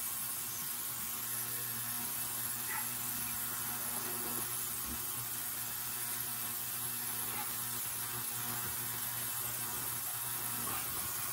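Steady background hiss with a constant low hum underneath and no distinct knocks or strokes.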